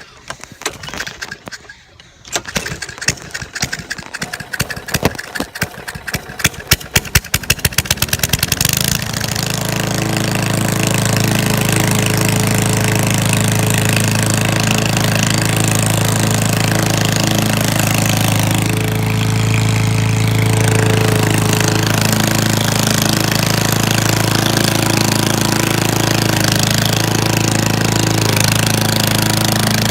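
Small lawn mower engine being started while hot: a few seconds of uneven, sputtering strokes that come faster and faster, then it catches about nine seconds in and runs steadily.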